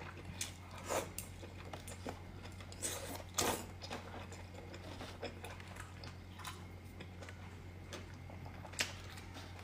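Close-miked eating sounds: chewing and small mouth clicks, with a few louder wet bursts about a second in and around three seconds in, over a steady low hum.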